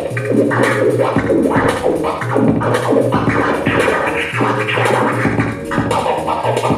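Turntable scratching over a beat, cut fast with a Mixfader wireless crossfader: Serato control vinyl on a portable turntable, played through the Mixfader iPad app. The scratches come in quick rising and falling strokes chopped by the fader, and the uploader finds them a bit time-stretchy.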